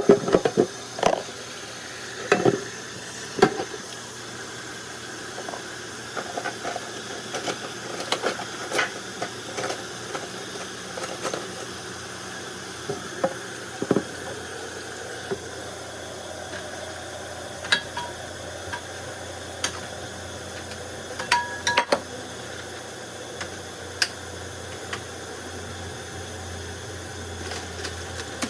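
Kitchen clatter: scattered clinks and knocks of dishes and utensils over a steady hiss, a few of the clinks briefly ringing.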